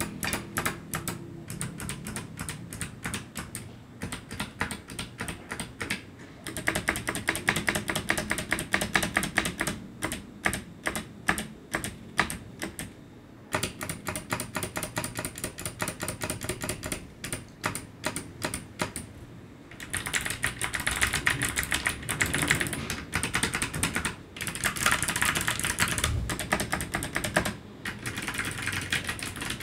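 Typing on an ABKO HACKER K8300 gaming keyboard with Kailh clicky optical switches: quick runs of crisp key clicks, several a second, broken by short pauses.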